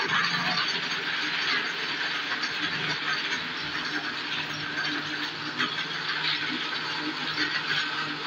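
Electric mixer-grinder (blender) motor running steadily, churning peaches with ice and water in its jar: a continuous whir with a low steady hum.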